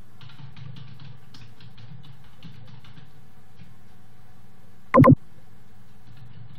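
Computer keyboard keystrokes, a quick run of clicks over the first three and a half seconds as an email address is typed in, over a steady low hum. About five seconds in comes one short, loud pitched blip.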